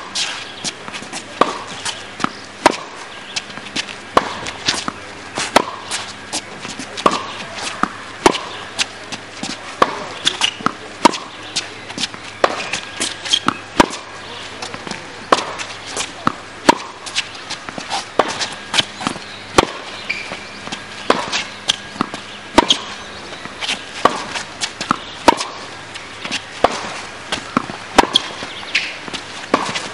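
Tennis rally on a hard court: rackets striking the ball and the ball bouncing on the court, a steady run of sharp pops about a second apart.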